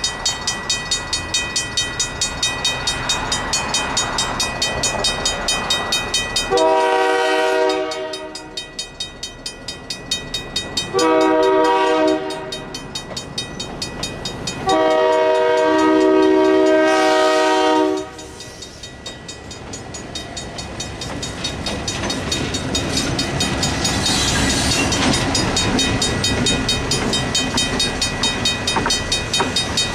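Level-crossing bell ringing steadily at about two strokes a second while an approaching diesel locomotive sounds its multi-chime horn three times, the last blast the longest. From about twenty seconds in, the rumble of the oncoming locomotive grows under the bell.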